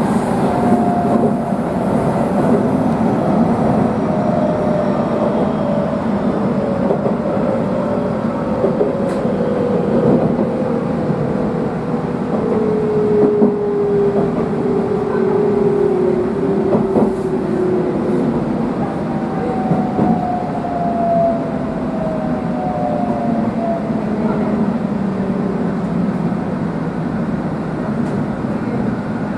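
Electric train braking into a station stop, heard from the cab: the motor whine slides slowly down in pitch as it slows, over a steady rumble of wheels on rail, with a few sharp clacks as the wheels pass joints and points.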